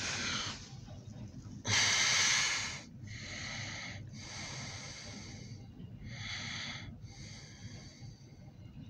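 A person breathing close to the microphone: about six noisy breaths or snorts, each about a second long, the loudest about two seconds in, over a steady low rumble.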